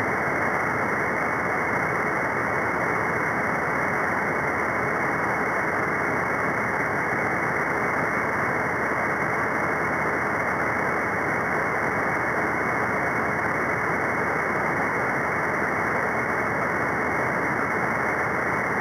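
Steady static hiss from an SDRplay receiver tuned to the 11-metre free band above CB channel 40, an open channel between transmissions, with a faint steady tone underneath.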